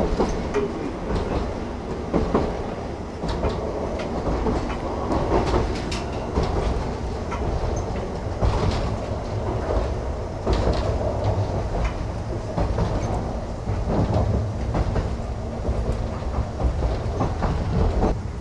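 Interior running noise of a former Tokyu 5000-series electric railcar: a steady low rumble with irregular clicks and knocks of the wheels and car body over the track.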